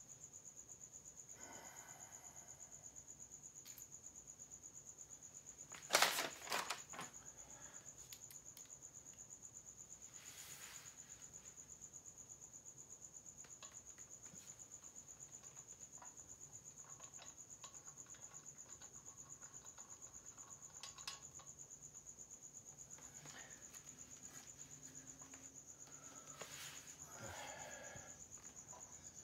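A cricket chirping in a steady high trill, over a few sharp clicks and knocks from small tools and parts being handled, the loudest cluster about six seconds in.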